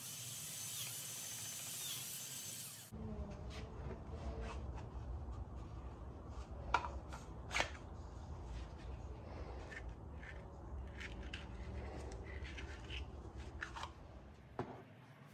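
A cordless drill running as it bores into a Kydex sheet, a bright whirring hiss that cuts off abruptly after about three seconds. Then scattered clicks and knocks of the drill and small parts being handled over a low rumble.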